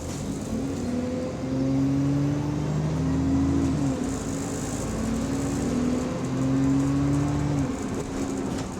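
Bus engine and drivetrain pulling under power, heard from inside the cabin: a pitched drone that climbs slowly, falls at a gear change about four seconds in, then climbs again and falls near the end.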